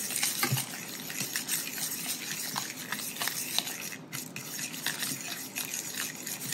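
A utensil stirring a thick mixture of melted butter, maple syrup and brown sugar in a bowl, with many small irregular clicks and scrapes against the bowl.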